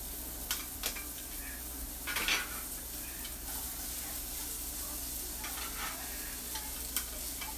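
Sliced onions sizzling as they are dropped into hot oil in a skillet, with a louder burst of sizzle about two seconds in and a few light clicks of metal tongs against the pan.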